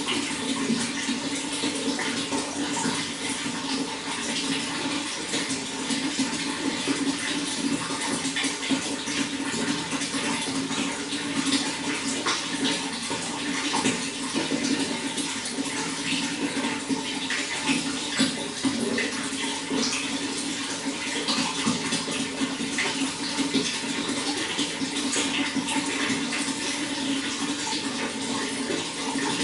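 Running water flowing steadily, with a constant spread of small splashes.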